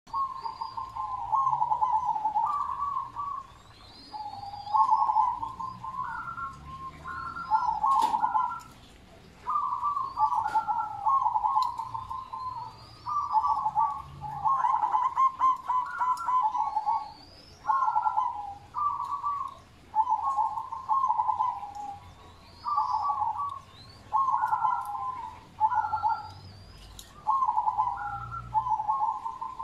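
Zebra dove (merbok) cooing: phrase after phrase of quick stuttering coo notes, each phrase a second or two long, with short pauses between.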